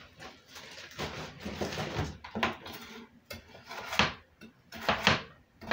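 A plastic bag rustling as chicken breasts are handled, then a chef's knife cutting through frozen chicken breast and knocking on a wooden cutting board in a few separate strokes in the second half.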